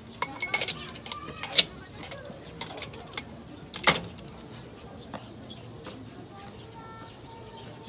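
Glass tea cups clinking together as they are handled and stacked: a run of sharp clinks over the first few seconds, the loudest two about one and a half and four seconds in.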